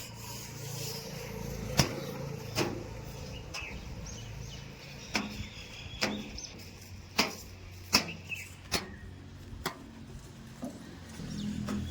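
A diesel engine running at a low, steady idle, with sharp knocks every second or so, typical of a backhoe loader's bucket and soil striking metal during loading.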